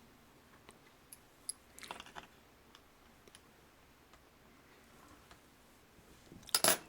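Scattered small plastic clicks and taps from hands working on an open laptop around its memory slot, with a louder cluster of clicks near the end.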